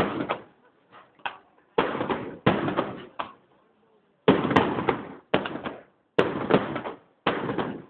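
Fireworks display: a series of about seven loud firework bangs, each starting suddenly and dying away within about a second.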